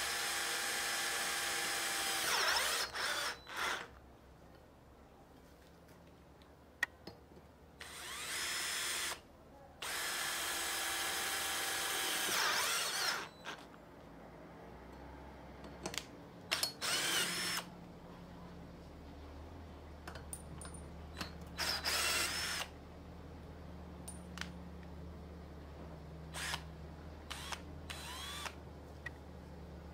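Total TDLI20025 20 V cordless drill-driver driving self-drilling hex-head screws into a steel tube. A steady motor whine at first, then about six short runs of the motor with pauses between, the pitch rising and falling as the trigger is worked.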